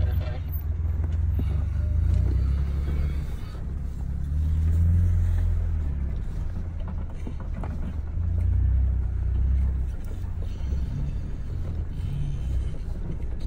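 Off-road vehicle's engine rumbling low as it drives, swelling louder and easing back several times.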